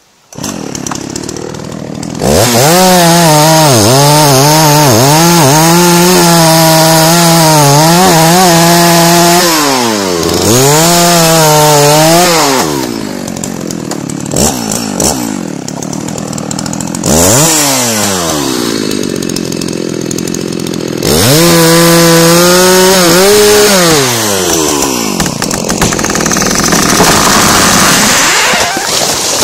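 Dolmar 7900 two-stroke chainsaw with an 18-inch bar and square-ground chain, making the back cut through the trunk of a big, very hard old beech. It runs at full throttle under load, with the revs dipping and dropping back several times between passes. Near the end, sharp cracks sound as the trunk starts to tip.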